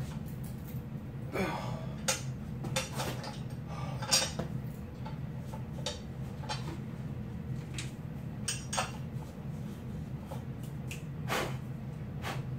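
Irregular metal clinks and knocks from iron weight plates and the hub shifting on a loaded hub-lift pin as it is gripped and pulled, the loudest about 4 seconds in and again near the end.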